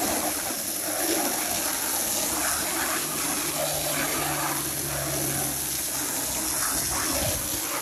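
Garden hose with a high-pressure nozzle spraying a steady jet of water onto a painted car part and the asphalt around it, rinsing the soap off: a continuous hiss and splash.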